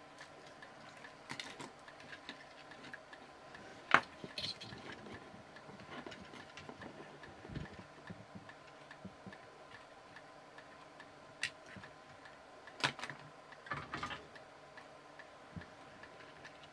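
Small plastic toy car parts being handled and fitted by hand, giving scattered light clicks and knocks. The sharpest click comes about four seconds in, and a few more come close together near the end, over a faint steady hum.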